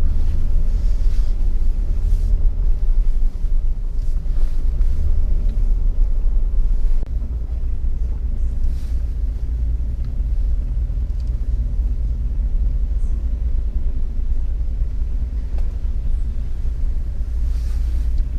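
Jeep Wrangler engine and drivetrain running steadily as it drives an off-road trail, a low rumble that drops a little in level about seven seconds in, with a few light knocks.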